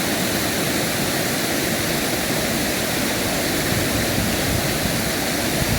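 Rushing mountain river water, a steady, even rush with no breaks.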